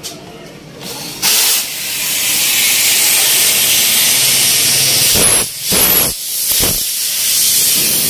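Refrigerant gas hissing out of a window air conditioner's cut copper line. The loud hiss starts suddenly about a second in and falters briefly a few times past the halfway mark.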